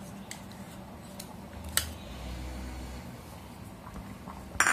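A few sharp clicks over a faint steady background, the loudest near the end: a plastic spatula knocking against a nonstick pan of milk and rice kheer being stirred.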